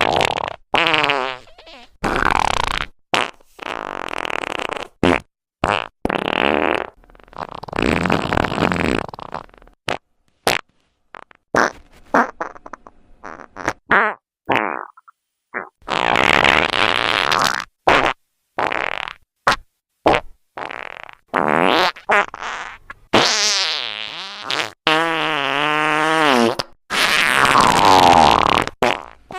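A long fart sound effect: a string of separate farts of varying length with short gaps between them, some of them pitched and wavering up and down. There is a sparser run of short sputters about halfway through.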